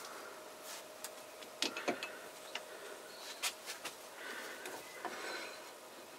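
Scattered light clicks and knocks, with a soft rubbing stretch a little past the middle: a bowl being seated on a wood lathe's jam chuck and clamped with the tailstock live centre.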